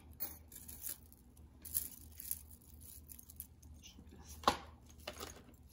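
Tangled costume jewelry being pulled apart by hand: faint clinks and rustles of metal chains and pieces, with one sharper click late on.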